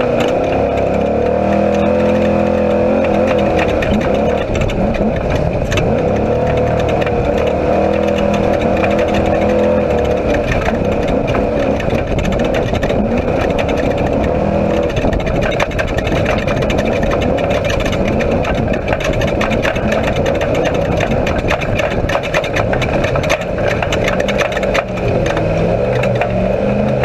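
Off-road race vehicle's engine heard loud inside the cockpit, running hard with its pitch rising and falling as the throttle changes. Frequent knocks and rattles from the vehicle running over a rough dirt track.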